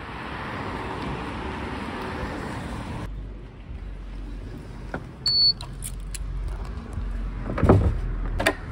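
A car passing on a tarmac road for the first three seconds. Then a short single electronic beep from a door entry reader, followed by a clunk and a click of the door's latch as it is unlocked and opened.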